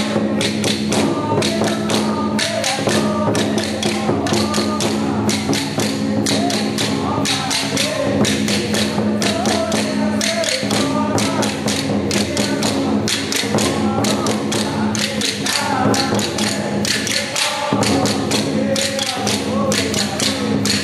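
Temple percussion of drums and cymbals beating rapid, even strokes several times a second over a steady ringing tone, the kind of ritual percussion that drives a Taiwanese spirit medium's trance.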